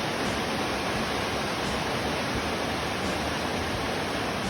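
Heavy rain making a steady, even rushing noise on the barn.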